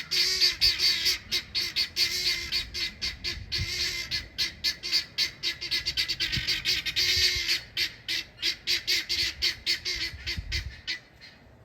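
Guinea fowl hollering: a fast, unbroken run of harsh, chattering calls, several a second, set off by wild guineas intruding on the flock. The calling dies away just before the end.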